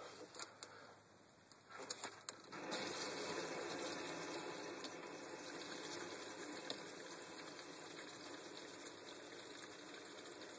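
A few light clicks of the valve handle, then from about two and a half seconds in a steady hiss of water rushing through the opened ball valve into the PVC lines and tank of a newly installed whole-house water filter as it fills.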